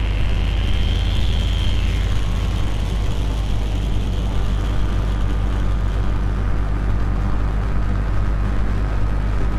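Lumanoise v4 experimental noise instrument playing a dense, rumbling noise drone with a heavy low end. A thin high tone rides on top for the first two seconds and then fades, all run through a delay pedal and plate reverb.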